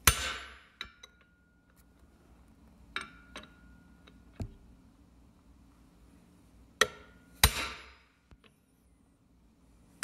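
Hammer blows on the end of a steel pipe, driving an axle seal into a Dana 30 axle housing tube through a seal driver. A handful of sharp metal strikes a few seconds apart, the first the loudest, several ringing briefly after the hit, with a few lighter taps between.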